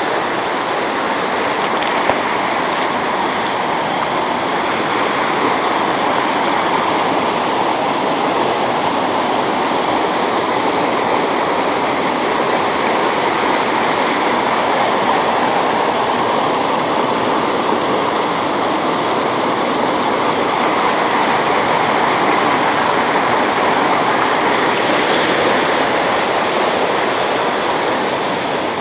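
Flood-swollen mountain stream rushing over boulders in whitewater: a steady, loud rush of water that grows a little louder through the middle.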